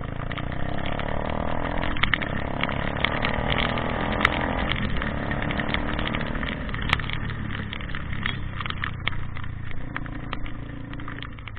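A vehicle engine running steadily, with many sharp clicks and knocks over it.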